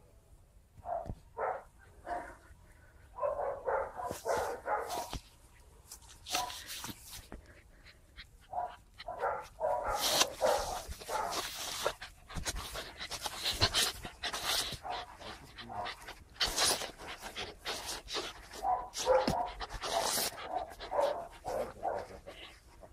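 Bergamasco Sheepdog puppies at play, giving short barks and yaps in irregular bursts, with panting.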